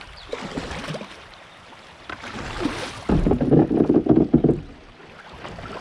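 Kayak on the water: low rumbling noise with scattered knocks, like a paddle or gear against the hull. A louder rumbling, knocking stretch of about a second and a half comes about three seconds in.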